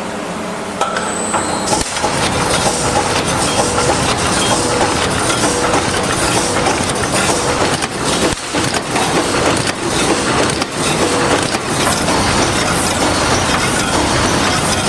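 3D fence panel wire mesh welding machine running, a dense mechanical clatter with many short knocks that gets louder about a second in.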